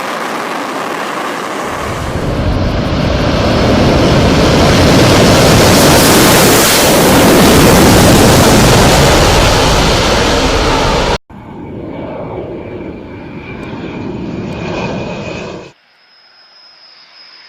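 Military fighter jet engines: a loud jet roar swells to a peak as a jet passes close, then cuts off abruptly to a quieter jet running with a steady high whine. Another abrupt cut leaves a faint whine that falls in pitch near the end.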